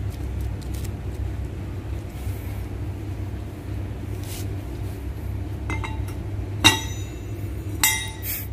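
Steel clutch parts being handled: several sharp metallic clinks with a brief ring, coming near the end over a steady low hum.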